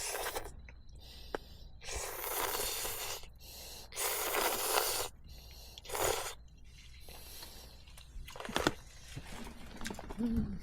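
Person eating hot octopus ramen, slurping noodles in four separate breathy bursts spaced a couple of seconds apart.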